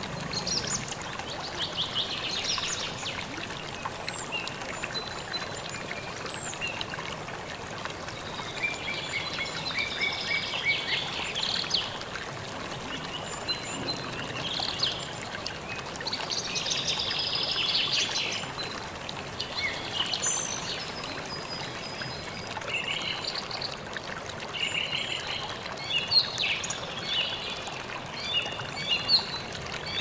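Waterfall pouring onto rock with a steady rush of water, and small birds chirping and twittering over it again and again.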